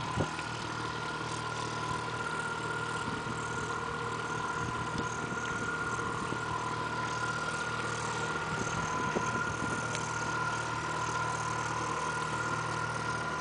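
Motorboat engine running steadily, a constant hum with a high whine.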